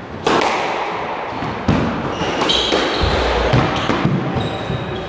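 Squash rally: the serve struck with a sharp crack a moment after the start, then the ball smacking off racket strings and the court walls several more times, with short shoe squeaks on the wooden court floor. Every hit rings in the hard-walled court.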